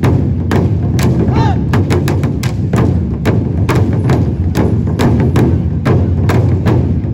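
An ensemble of large barrel drums is struck with wooden sticks in a fast, steady pattern of about four hits a second over a deep rolling boom. A brief vocal call comes about a second and a half in.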